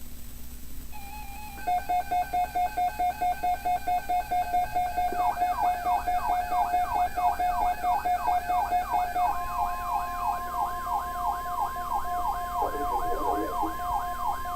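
Electronic weather-alert alarms sounding together. Rapid beeping comes first. About five seconds in, a siren-like tone starts sweeping up and down about three times a second. Near nine seconds a steady single tone joins, the NOAA Weather Radio warning alarm tone that comes before an urgent weather message.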